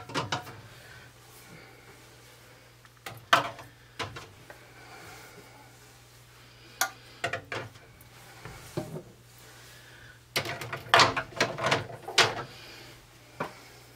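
Filled glass canning jars being set one at a time into a Presto 23-quart aluminum pressure canner, knocking and clinking against the pot and its rack in scattered single knocks. A quicker run of knocks comes near the end.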